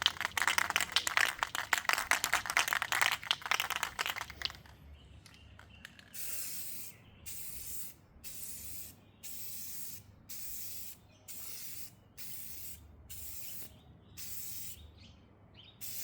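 An aerosol can of gloss black spray paint is shaken hard, its mixing ball rattling fast for about four seconds. It is then sprayed in a series of short hissing bursts, about one a second.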